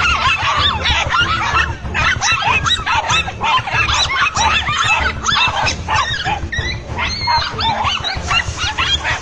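A pack of dogs yelping and barking excitedly during an attack, many short high-pitched yips overlapping without pause, over a steady low rumble.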